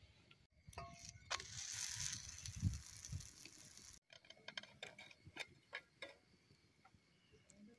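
Faint cooking sounds of a flatbread on an iron griddle over a wood fire. First comes a hiss with a few clicks and low bumps. After a cut about four seconds in, scattered, irregular clicks and pops follow as the flatbread cooks on the hot griddle.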